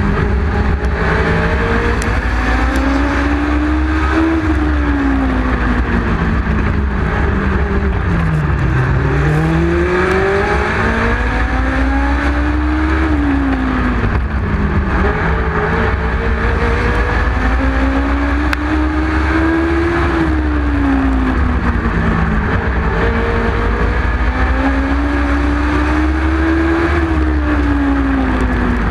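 Legend race car's Yamaha four-cylinder motorcycle engine at racing speed. Its pitch climbs along each straight and drops into each turn about every seven seconds as it laps a short oval, four times here, over a steady low rumble.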